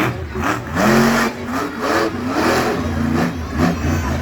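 Monster truck engines revving, their pitch rising and falling again and again over a steady low rumble.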